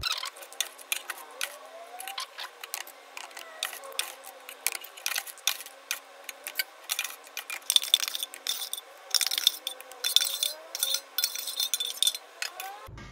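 Dry soybeans rattling and pattering into ceramic cups as a metal spoon scoops them from a stainless steel tray, a dense, uneven run of many quick clinks and scrapes.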